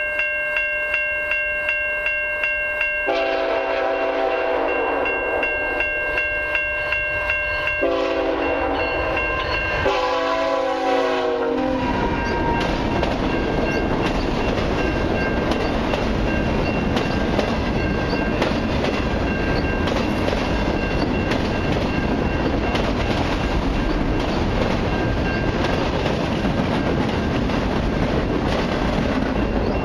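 A level-crossing bell ringing. A freight locomotive's air horn then sounds three blasts, two long and a shorter one that drops in pitch as the locomotive passes. A long train of autorack cars follows, rolling by with a steady rumble and clickety-clack of wheels over the rail, the crossing bell still ringing faintly.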